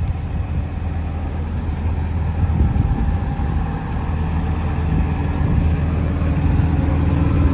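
Hitachi Zaxis 210 LC-6 excavator's diesel engine running steadily.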